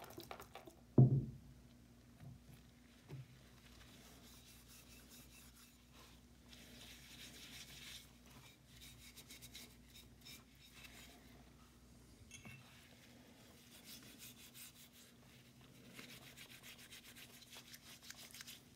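Gloved hands rubbing and scrubbing rusty cast-iron hand plane parts in mineral spirits in a plastic pan, with a single loud thump about a second in. The pour of solvent tails off right at the start.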